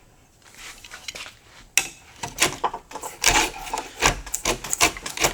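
A low-angle block plane worked over wood in quick, irregular strokes, its freshly sharpened blade scraping off shavings. The strokes start faintly about half a second in and grow louder from about two seconds in.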